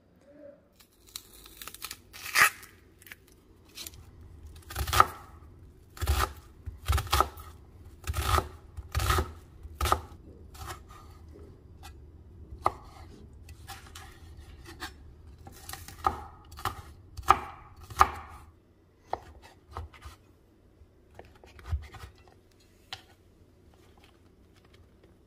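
Chef's knife chopping vegetables on a wooden cutting board: irregular sharp knocks of the blade on the board, which thin out to a few faint taps after about nineteen seconds.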